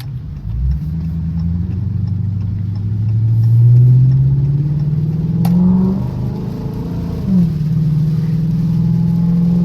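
2013 Chrysler 300C's 5.7-litre Hemi V8 accelerating, its revs climbing steadily for about six seconds, then dropping quickly on an upshift about seven seconds in and holding steady. A single sharp click comes about five and a half seconds in.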